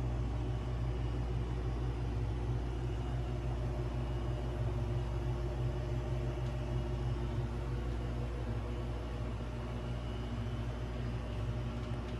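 Steady low mechanical hum with a few constant tones and a light fan hiss, from the refrigeration unit of a glass-shelved flower display cooler.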